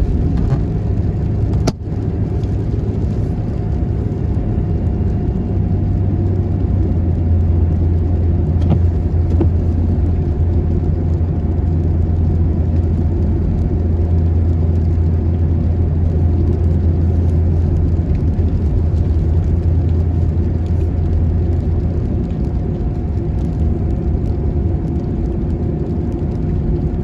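Steady road and engine noise from inside a moving vehicle: a low rumble with a faint steady tone above it. There is a single sharp click a couple of seconds in.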